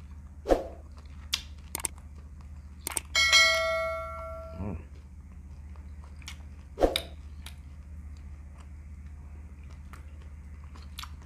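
A subscribe-button sound effect: a click, then a bright bell ding about three seconds in that rings out and fades over about a second. Around it come a few short wet mouth clicks from chewing, over a steady low hum.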